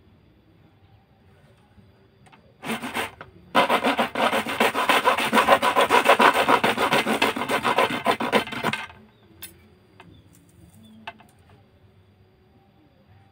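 Knife blade sawing back and forth across a thin fiberglass rod to cut it: a short scrape, then about five seconds of rapid, even rubbing strokes, followed by a couple of faint ticks.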